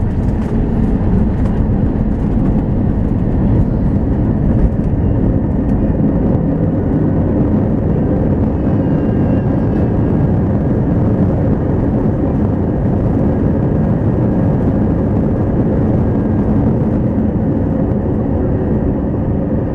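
Airbus A321 cabin noise while the airliner rolls along the runway after landing: a loud, steady rumble of engines and wheels heard from inside the cabin.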